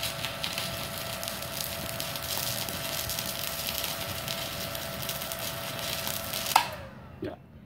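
Stick-welding arc crackling and sizzling on a 3.2 mm electrode at about 80–90 A, fed by a small IGBT inverter welder, with a steady whine under it. About six and a half seconds in it cuts off suddenly as the 900 W household supply's MCB trips and the welder goes dead.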